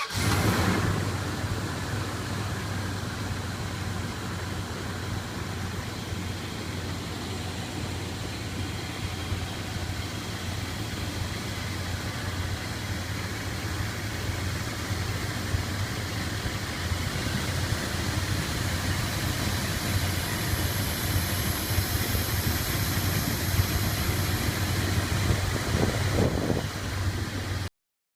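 Dodge Ram 1500's 5.2-litre V8 idling steadily just after starting. Past the middle a high hiss comes in for several seconds: a vacuum leak, which the owner says drops the rpm and makes the engine bog slightly while it hisses. The sound cuts off abruptly near the end.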